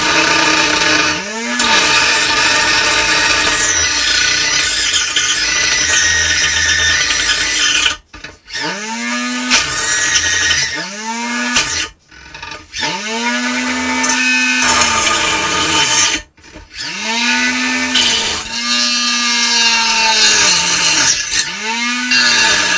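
The small brushless saw motor of an antweight combat robot drives its saw blade into a plastic block with a grinding whine. The pitch keeps climbing and then sagging as the blade bogs down and gets stuck in the cut. The motor cuts out briefly three times, then spins up again.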